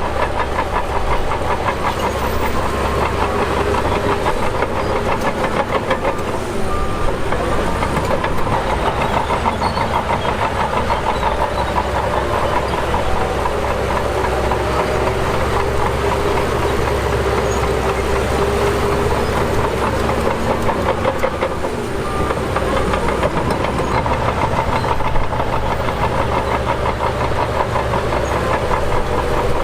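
Shantui DH17 bulldozer's diesel engine running steadily at an even working speed, with a fast, even firing pulse.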